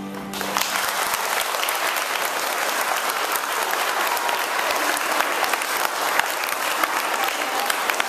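Audience applauding after a steel pan piece, the clapping breaking out about half a second in; the last steel pan notes are still dying away at the very start.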